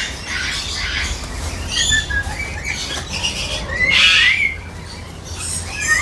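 Lories calling: a string of short, shrill chirps and squawks, with sliding whistled calls about two seconds and four seconds in.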